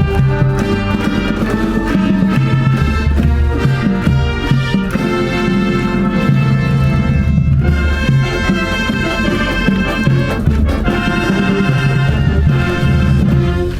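Live high school wind band playing a brass-led piece. The music stops abruptly at the very end.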